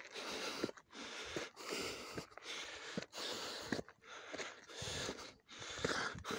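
A hiker breathing hard on a steep uphill climb, rapid breaths close to the microphone at roughly one a second, with a few light footsteps on the dirt trail.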